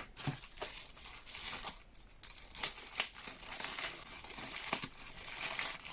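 Packaging being handled by hand during an unboxing, crinkling and rustling with many small clicks.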